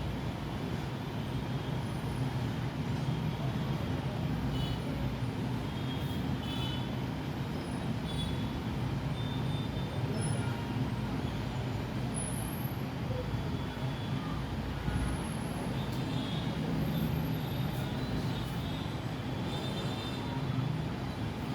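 Steady low background rumble and hum, unchanging throughout, with a few faint short high chirps now and then.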